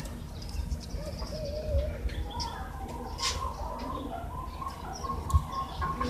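Small cage birds chirping and warbling in wavering, thin calls, with a couple of sharp clicks about three seconds in and again near the end.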